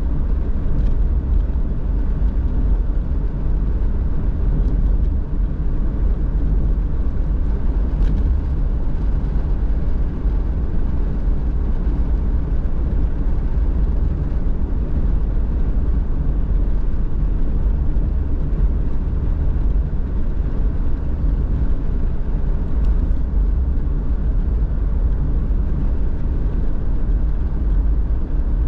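Car driving at a steady speed: a continuous low rumble of road and engine noise.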